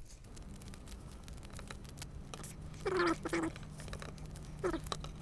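Kapton tape being pulled off its roll and handled: scattered light clicks and ticks with a few short squeaks, the loudest a pair about three seconds in. A faint steady hum runs underneath.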